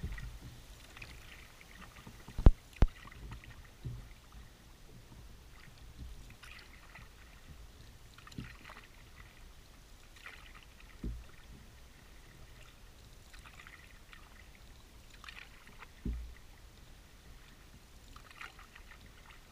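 Kayak paddle strokes, the blades dipping and dripping with soft splashes every couple of seconds, with a few dull knocks on the kayak hull. Two sharp knocks close together come about two and a half seconds in.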